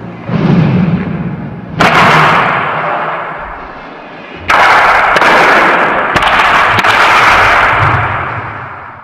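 Dramatic soundtrack percussion: three loud sudden crashing hits, each trailing a long ringing wash, over a low droning tone, fading near the end.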